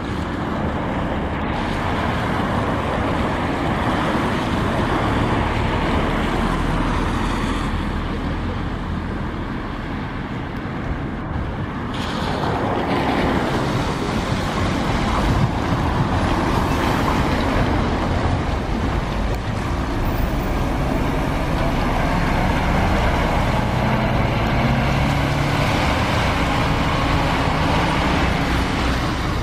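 Scania K400 diesel engine of a Marcopolo Paradiso New G7 1800DD double-decker coach running as the coach pulls away and drives past, with tyre noise on a wet road and other traffic.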